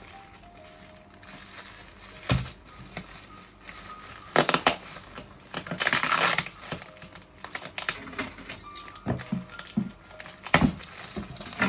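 Bubble wrap and plastic packaging crinkling and rustling as hands handle it, in irregular bursts with a longer, louder stretch about six seconds in.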